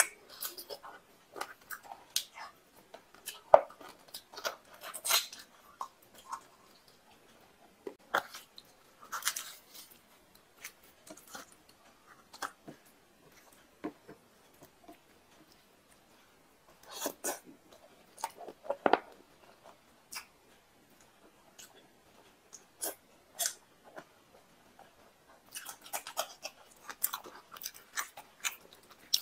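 A person chewing mouthfuls of mutton curry and luchi, a meal eaten by hand. The chewing comes in clusters of short wet clicks with quiet pauses between mouthfuls.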